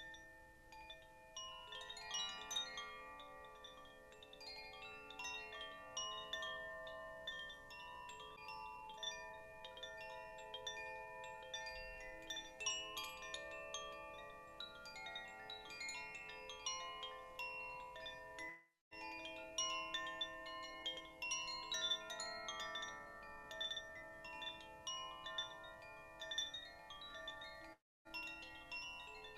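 Chimes rung continuously, many metallic tones struck over and over and ringing into each other in a shimmering wash. The sound cuts out briefly twice, a little past halfway and near the end.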